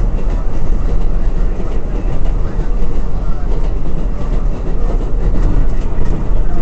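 An R188 subway train running at speed, heard from inside the car: a steady, loud rumble of wheels on the track with faint scattered ticks.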